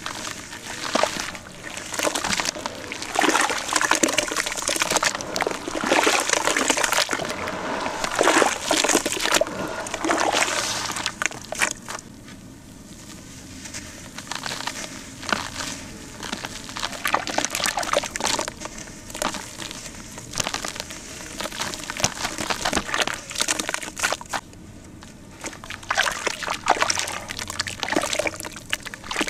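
Hands crumbling lumps of dry, dusty reused cement into water in a basin: gritty crumbles pattering and trickling down, louder in the first ten seconds. Near the end the soaked cement is squeezed into a wet paste, with squishing and sloshing.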